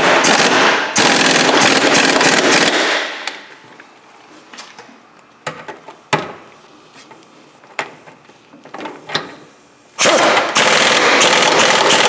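Matco Tools pneumatic impact wrench hammering as it runs the 17 mm nuts tight on a new rear shock's mounting bolts: a burst of about three seconds with a short break about a second in, a few scattered clicks and knocks, then another burst starting near the end.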